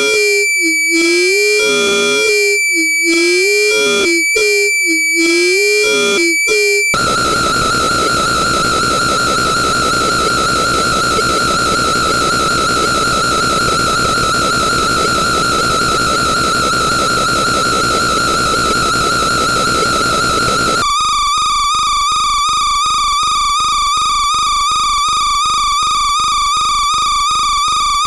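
Electronic feedback noise: first a warbling pair of whistling tones pulsing about once a second, then after about seven seconds a sudden switch to a steady dense hiss with a held high whine. About two-thirds of the way through it turns into a rapid stutter of about three pulses a second.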